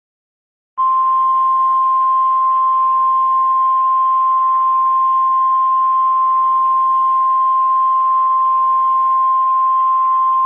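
Emergency alert attention signal: a single steady high tone over faint radio-like hiss. It starts about a second in, holds for roughly ten seconds and cuts off abruptly at the end.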